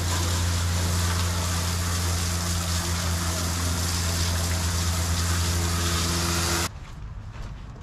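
Garden hose spray nozzle blasting water onto a fish-cleaning table: a loud, steady rushing spray with a low hum underneath, cutting off suddenly near the end as the nozzle is shut.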